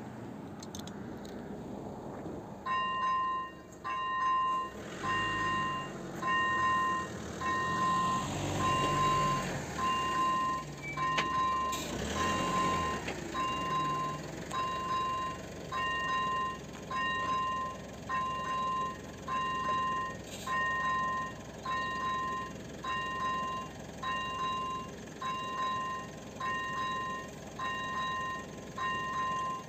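Electronic warning bell of an AŽD 97 level-crossing signal starting about two and a half seconds in and then ringing a steady, repeated chime, the warning that a train is approaching.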